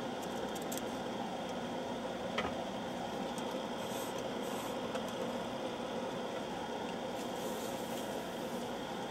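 Steady hum of a Teletype ASR-33 left running, with one sharp click about two and a half seconds in.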